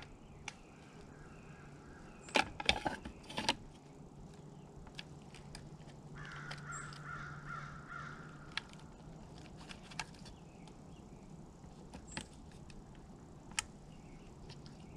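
Sharp plastic clicks and knocks from a Moultrie corn feeder timer being handled and seated with its battery on the tray: a cluster of loud clicks two to three seconds in, then single clicks now and then. A bird calls for about two seconds midway.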